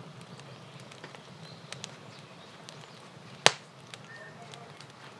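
Firewood burning in a metal stove, crackling with scattered small snaps and one sharp, loud pop about three and a half seconds in.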